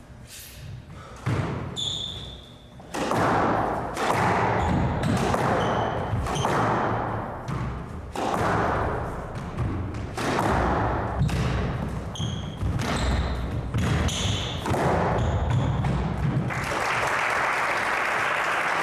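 Squash rally: the hard rubber ball cracks off racket strings and the court walls again and again, ringing in the enclosed court, with short sneaker squeaks on the wooden floor. The hitting stops about three-quarters through and steady clapping from the crowd takes over.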